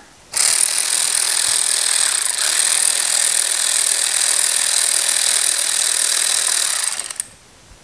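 Cordless power tool running steadily for about seven seconds on a front brake caliper bolt, loosening it. It starts suddenly and cuts off near the end.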